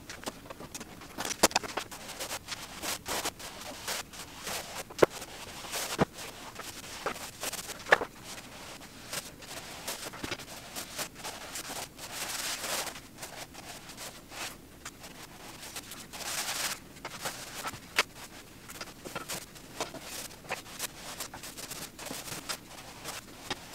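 Paintbrush swishing as primer is brushed onto a textured wall, with scattered sharp clicks and knocks from handling the brush, paint cup and ladder. The loudest clicks come in the first eight seconds.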